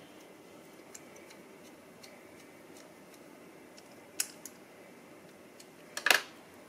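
Small clicks and taps of a screwdriver and the metal diecast car body and base being handled while the base is screwed on. There is a sharp click about four seconds in and a louder clatter of clicks near the end.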